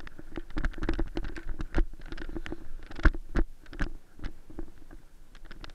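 Irregular knocks, scrapes and rustles of a body-worn action camera as its wearer moves through dry grass and brush, over a low rumble. The knocks are loudest near the middle.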